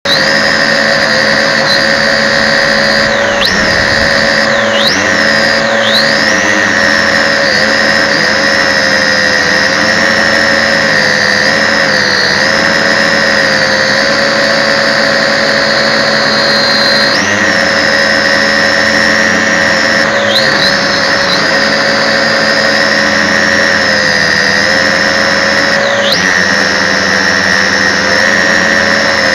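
MJX X600 hexacopter's motors and propellers whining steadily, close up from its own onboard camera. The pitch dips and rises back briefly several times, around four seconds in and again about halfway through and near the end.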